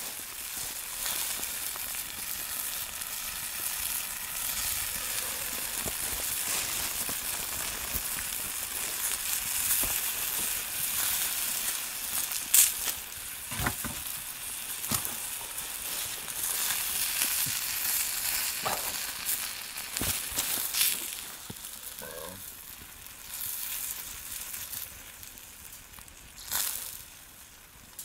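Continuous sizzling and crackling from a Firebox wood-burning camp stove cooking yakitori, with sharp pops now and then, the loudest about twelve seconds in.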